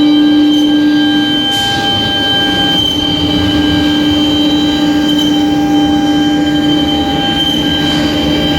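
Heavy-duty CNC wood router running, its water-cooled spindle giving a steady high whine over a noisy cutting bed. A brief hiss comes about a second and a half in and again near the end.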